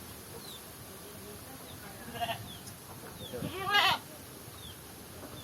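A goat bleats once, a wavering call about three and a half seconds in, after a shorter call a second or so earlier.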